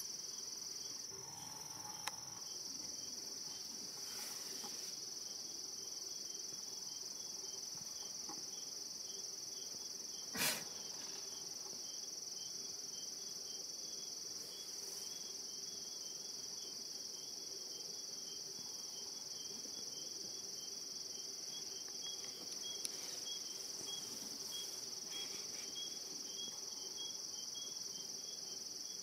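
Steady high shrill of night insects such as crickets, with a fainter pulsing chirp beneath it. A single short knock about ten seconds in.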